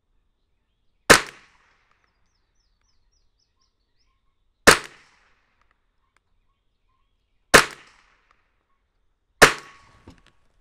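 Four single shots from a Marlin Model 60 semi-automatic .22 LR rifle firing CCI subsonic standard-velocity rounds, a few seconds apart. Each shot is short and sharp and dies away quickly.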